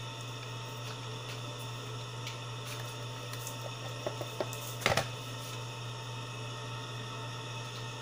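A plastic project box set down on a tabletop: a few light clicks, then one knock about five seconds in, over a steady low hum.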